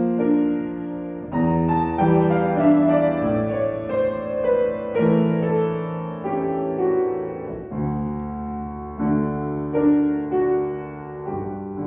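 Solo piano playing a melody over sustained chords and low bass notes, each note struck and left ringing.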